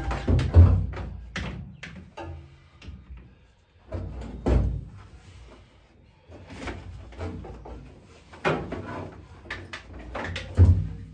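Irregular clunks, knocks and rustling as a portable jump starter and its cables are handled and set down in the metal engine compartment of an M29 Weasel, with a few louder knocks spread through.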